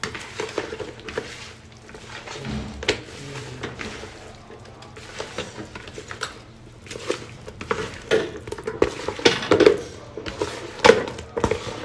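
Hands mixing rohu fish pieces with an oily spice marinade in a bowl: wet squishing, with the pieces knocking against the bowl in irregular clicks, busier in the second half.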